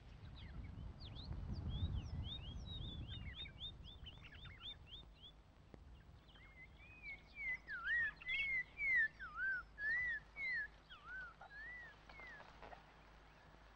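Wild birds calling in dry bush. First comes a fast run of short, high, falling chirps. Then, from about halfway in, a louder series of about a dozen slurred whistled notes that rise and fall, roughly one and a half a second. A low rumble is heard in the first few seconds.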